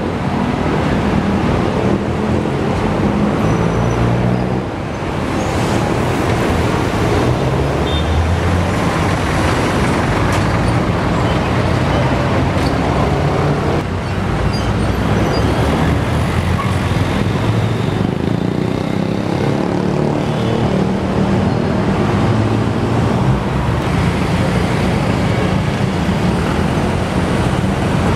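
Motor engines running amid steady traffic noise, with engine tones that rise and fall.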